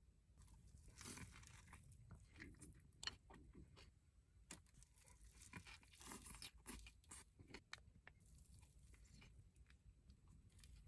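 A person chewing crunchy fried food close to the microphone: faint, irregular crunches and mouth sounds.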